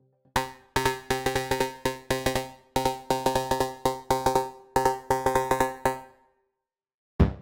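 OsTirus, a software emulation of the Access Virus TI synthesizer, playing a sequence of short, plucky pitched notes with sharp attacks and quick decays in a steady rhythm. The sequence stops about six seconds in, and a deeper, drum-like patch begins at the very end.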